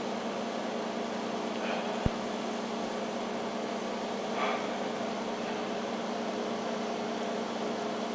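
Steady hum of an aquarium's running water pump and aerators, with one sharp click about two seconds in.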